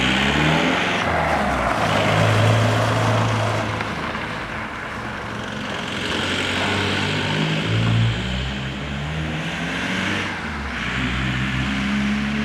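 Ford Transit van engine and exhaust running, the pitch stepping up and down several times as it revs, which the owner puts down to a bad solenoid.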